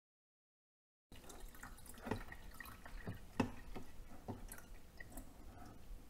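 Last drops of water dripping from a tipped-up glass carafe into the water tank of a drip coffee maker. After total silence for the first second, there are faint, irregular drips, about ten over the next four seconds.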